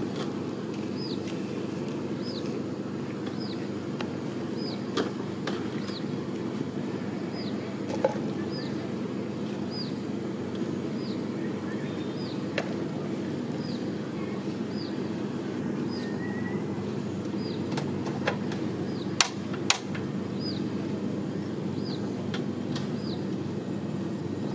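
A steady low machine hum, with a bird's short high chirp repeating about once a second over it. A few light knocks come through, one near the middle and two close together about three-quarters of the way in.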